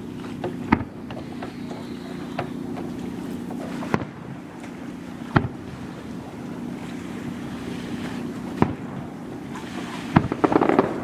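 Fireworks bursting: single sharp bangs every few seconds, then a quick cluster of crackling pops near the end, over a steady low hum and wind noise.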